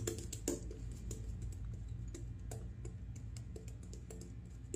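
Shaving brush working soap lather over the face, making quiet, irregular wet crackles and clicks.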